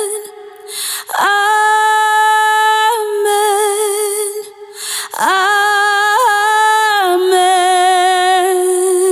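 A solo voice singing long held notes unaccompanied, with slight vibrato: two sustained phrases with a breath between them, about four seconds in. It is recorded close up through a large-diaphragm condenser microphone, the United UT Vintage87.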